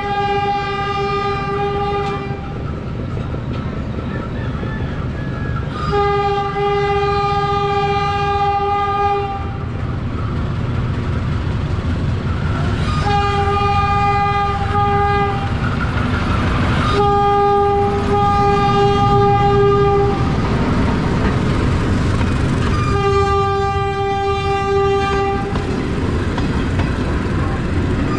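Diesel locomotive horn giving repeated long blasts, five of about two to three seconds each with a sixth starting at the end, as a warning while the train approaches a level crossing. Under the horn the train's rumble builds as it draws near and passes, with wheels clicking over the rail joints.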